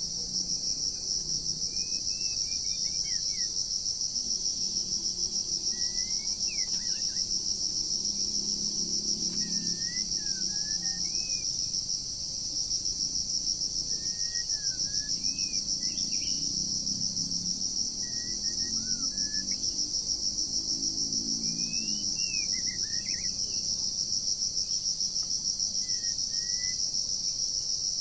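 A loud, steady insect chorus trilling with a fast pulse, over short whistled bird phrases that come every couple of seconds.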